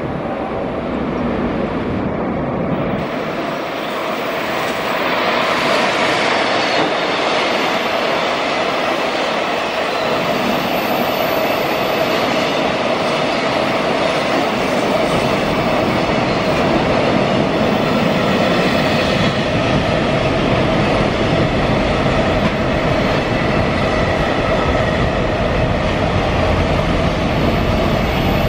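EF210 electric locomotive and its container freight train rolling past, a continuous rumble of wheels on rail that grows louder about five seconds in and then holds steady as the wagons go by.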